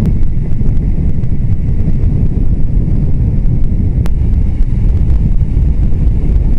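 Riding a Suzuki GSR250 motorcycle at speed: heavy, steady wind rumble on the microphone, with engine and road noise underneath. A brief click about four seconds in.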